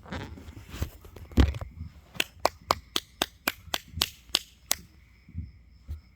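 Fireworks going off: a heavy bang about a second and a half in, then a quick run of about ten sharp cracks, roughly four a second, that stops about five seconds in.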